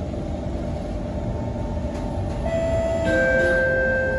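Steady low rumble of a Kawasaki Heavy Industries C151 metro train, heard from inside the car. About two and a half seconds in, an electronic chime sounds over the car's speakers: a higher note, then a lower note held for over a second, the kind of chime that leads into an onboard announcement.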